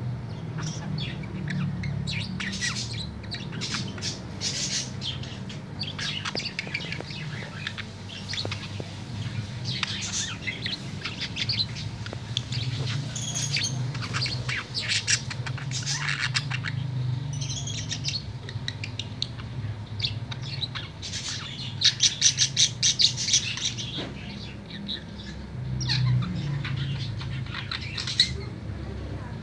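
Male green budgerigar warbling and chirping without pause, its chattering song. About three quarters through comes a run of loud, rapid clicking chatter. A steady low hum runs underneath.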